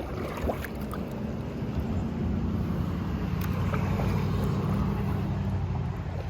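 Low engine rumble of a passing motor vehicle that swells and then drops off near the end, with a few faint clicks over it.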